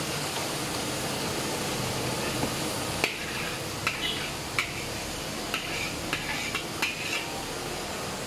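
Cooked wood ear mushroom stew poured from a metal wok into an aluminium tray. About three seconds in come a series of about eight sharp metallic clinks and knocks as the wok and spatula scrape and tap against the tray, over a steady background rush.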